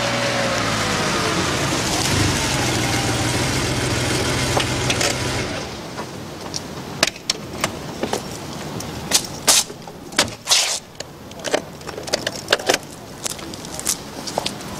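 Sports car engine running as the car pulls up, its pitch dropping as it slows, then switched off about five and a half seconds in. Scattered clicks and knocks follow as the car door opens and shuts, then footsteps on pavement.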